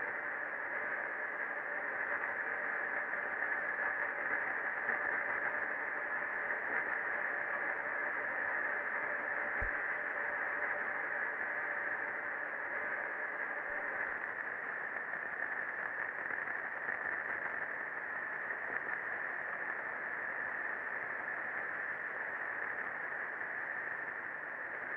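Steady hiss, narrow in range like radio or phone-line static, with one faint low knock about ten seconds in.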